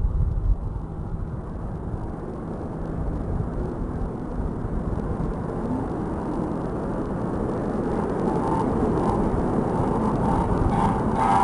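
Outdoor traffic noise by a road, with a vehicle running and wind rumbling on the microphone, slowly growing louder. A repeating pulsing tone comes in near the end.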